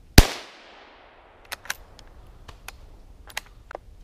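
A single rifle shot from a .17 HMR, sharp and very loud, with a short echoing tail through the woods. About seven short, sharp clicks follow over the next couple of seconds.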